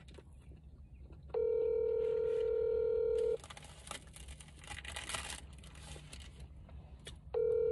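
Telephone ringback tone heard from a phone's speaker. One steady two-second ring comes about a second and a half in, followed by a pause, and the next ring starts near the end: the called phone is ringing and has not been answered yet.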